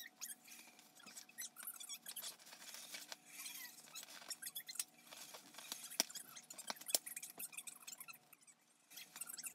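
Paper gift bag and tissue paper rustling while a handheld stapler is squeezed on the bag's top edge, giving a few sharp clicks, two of them plainest about six and seven seconds in.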